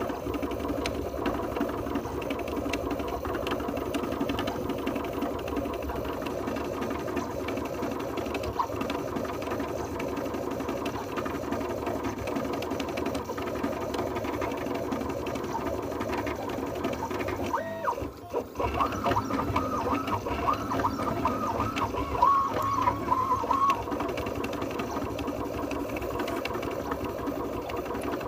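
3D printer printing at high speed, its stepper motors driven at 1/32 microstepping and turning multi-start leadscrews on the X and Y axes: a steady mechanical whine and buzz from the fast, short back-and-forth moves. The sound dips briefly about 18 seconds in, then quick rising and falling chirps run for several seconds as the head zigzags through infill.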